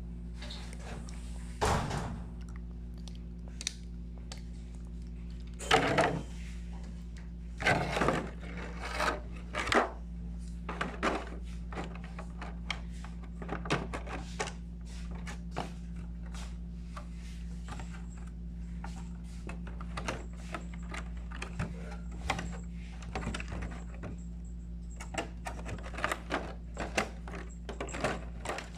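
Irregular knocks, clicks and rustles of a toy motorcycle and its packaging being handled and unboxed, a few louder knocks in the first third and lighter clicks after, over a steady low hum.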